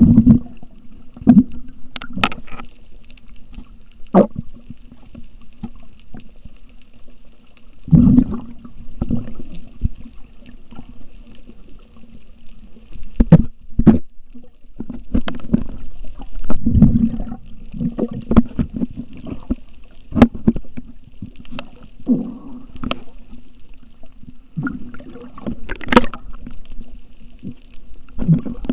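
Water sloshing and gurgling as heard underwater, with irregular low surges and scattered sharp clicks.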